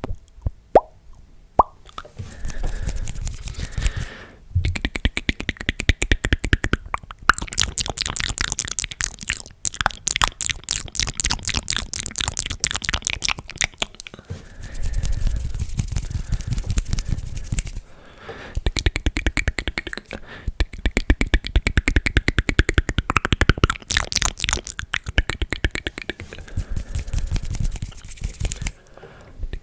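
Close-miked ASMR mouth sounds: rapid wet clicks and smacks of the tongue and lips, in runs of several seconds with short pauses between them.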